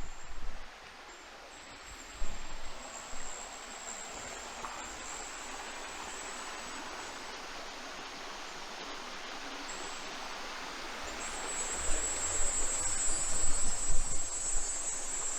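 Steady rushing of a waterfall, growing louder from about three-quarters of the way through, with a thin, high insect buzz above it.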